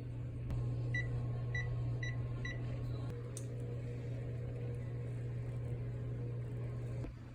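A kitchen appliance's electronic keypad beeping four times, about half a second apart, over a steady low hum that drops near the end.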